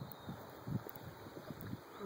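Wind buffeting a phone's microphone in irregular low puffs.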